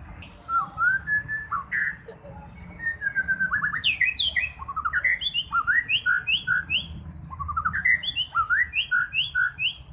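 White-rumped shama singing: loud, clear whistled phrases of quick rising notes, repeated in bursts with brief pauses.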